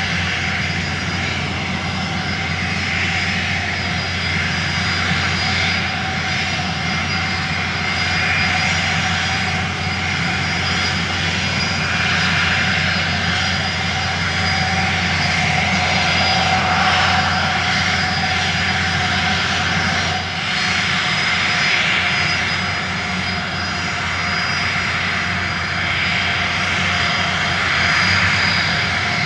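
Small drone's electric motors and propellers whining steadily in flight, the pitch wavering a little as the throttle changes.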